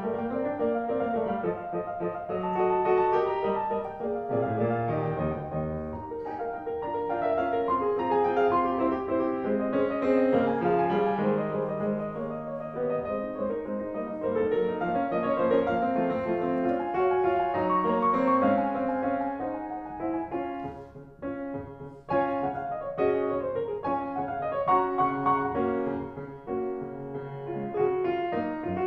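Instrumental piano music, a melody moving over sustained chords.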